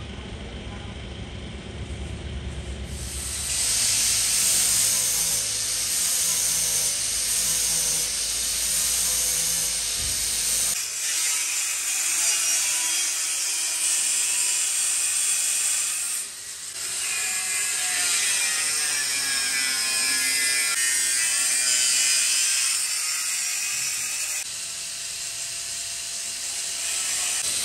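Angle grinder cutting into a tractor's sheet-steel hood panel. It makes a loud hissing whine that rises and falls in pitch as the disc bites. It starts about three seconds in and dips briefly once.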